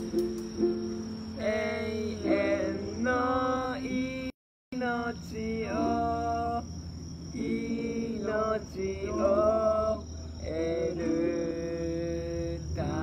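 Singing of a Japanese worship song over a plucked string instrument, in held, wavering phrases. The sound cuts out completely for a moment about four seconds in.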